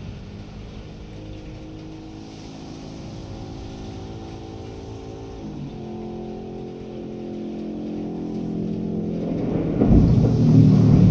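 A motor vehicle's engine running steadily, changing pitch once about halfway through. About ten seconds in, a loud low rumble of thunder builds and drowns it out.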